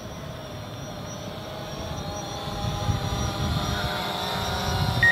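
DJI Phantom 4 Pro quadcopter's propellers whining as it flies back in, the hum growing louder from about two seconds in, with wind on the microphone. At the very end a short beep sounds: the obstacle-avoidance warning that the drone's sensors have picked up the pilot close by.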